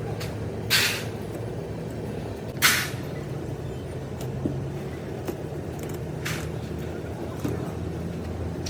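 A steady low engine or motor hum, with two short loud hisses of air about one and three seconds in and a fainter one near the end.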